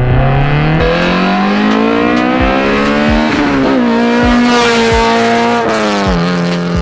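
K20Z3 inline-four in a Honda Civic EK, running through a 3-inch exhaust, accelerating hard. The engine note climbs steadily, drops sharply about three and a half seconds in, then holds high and falls away near the end.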